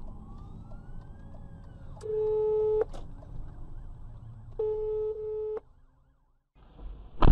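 A car horn sounds twice, each a steady blast of about a second, almost two seconds apart. Near the end, after a brief drop-out, comes a loud sharp thump.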